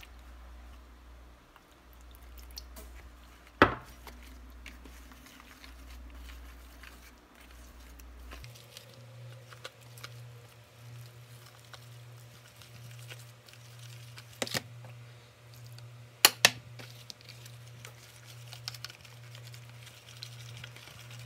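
Wire whisk mixing flour and water into pancake batter in a mixing bowl: a soft, wet scraping and squishing. The whisk clacks sharply against the bowl once about four seconds in, again near fourteen seconds and twice in quick succession around sixteen seconds. A steady low hum runs underneath.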